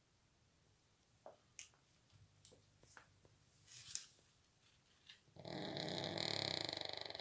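A few faint clicks, then, a little over five seconds in, a shih tzu's loud snore of about two seconds, a fast-pulsing buzzing breath while the dog sleeps.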